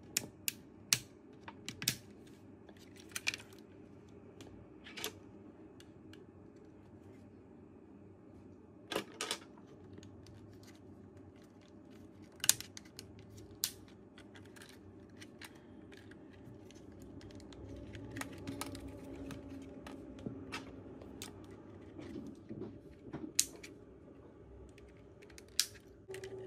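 Scattered sharp clicks and taps of small plastic parts being handled, as the DJI Mini 4 Pro's cover is pressed and snapped back onto the drone body. A faint low handling noise swells in the second half.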